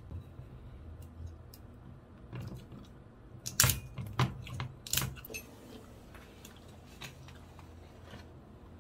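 Screw cap of a large sangria bottle being twisted open by hand, giving a run of small sharp clicks and cracks. The loudest come about three and a half, four and five seconds in.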